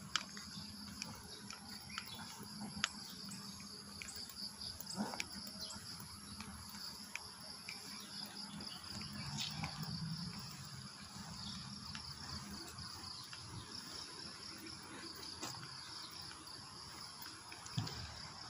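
Steady high-pitched chorus of insects chirring in the roadside trees, with a fine pulsing texture, and scattered faint clicks.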